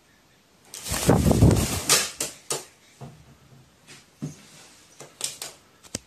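A crow thrashing about in agitation at a wild bird's feather held up to it: a loud burst of wing-flapping and scuffling about a second in, then several sharp taps and knocks.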